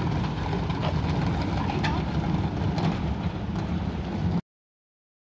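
Steady low rumble of a moving vehicle, cutting off abruptly to dead silence a little over four seconds in.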